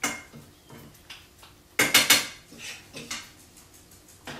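Pots, pans and utensils clattering as they are handled at a kitchen stove: a sharp knock at the start, three loud clanks in quick succession about two seconds in, then lighter knocks.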